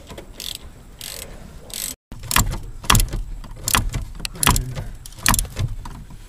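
Ratchet wrench clicking and knocking in irregular strokes while undoing the vacuum brake booster's mounting nuts under a truck's dashboard, with a short gap about two seconds in.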